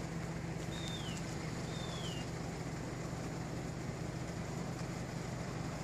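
Steady low hum of an idling engine, with two short falling whistles from a bird about one and two seconds in.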